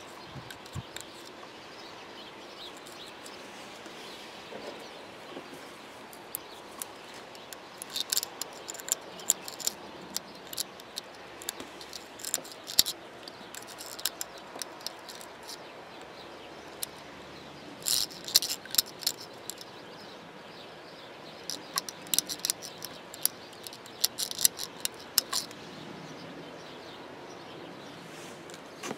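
Small sharp clicks and scratches in irregular clusters: a toothpick and a plastic pick scraping inside the plastic connector socket of a Meyer plow light module as its contacts are worked clean. Under them is a steady faint hiss.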